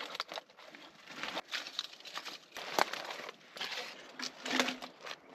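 Dry kindling rustling and crackling as it is handled and packed into the gap between two logs, with a few sharp snaps and light knocks.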